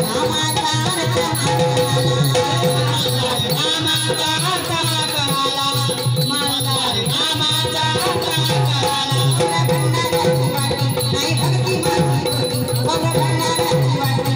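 Instrumental passage of Marathi devotional folk music: a melody line over a steady drum beat with rattling, shaker-like percussion.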